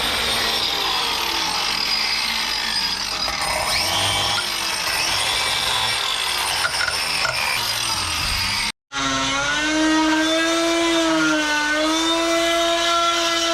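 Power tool cutting a drain pipe down flush with a concrete floor: a rough cutting noise. After an abrupt break about nine seconds in, it goes on as a steady whine whose pitch wavers as the blade is loaded.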